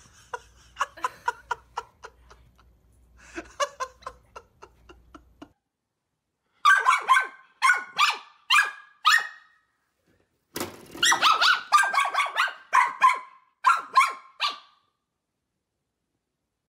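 Small white curly-coated dog barking in quick, loud yaps, about two a second, in two runs with a short pause between. Softer, faster sounds come in the first few seconds.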